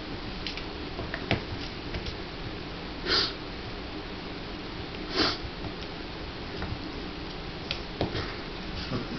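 A puppy chewing and nosing at a piece of chicken, sniffing: two short sniffs about two seconds apart, with a few faint clicks.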